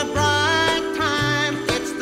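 Christmas music playing: a melody with a wavering pitch over a stepping bass line.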